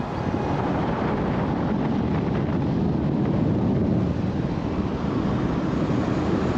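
Steady road and wind noise from a ute towing a caravan along a sealed road, picked up by a camera mounted outside the vehicle: an even rush of tyres and wind.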